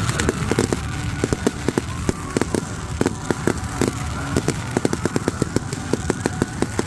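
Fireworks popping and crackling in quick, irregular bursts, several sharp pops a second, over a steady low rumble.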